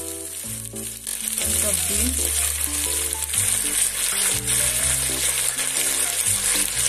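Sliced onions and carrots sizzling in hot oil in a pan, the sizzle growing louder about a second and a half in as green beans go in. Soft background music with held notes plays underneath.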